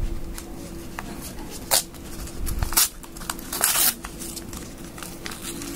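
Padded paper mailer being handled and peeled open by hand at a sticky taped flap: irregular rustling and crinkling paper with a few sharper crackles, the loudest just before four seconds in.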